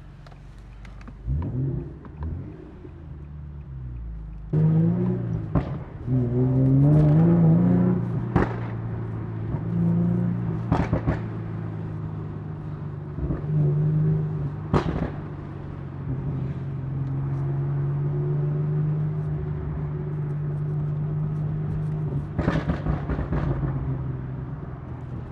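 Car engine running. It comes up sharply about four and a half seconds in, its pitch rises and falls for several seconds, then it holds a steady drone. Several sharp clicks or knocks sound over it.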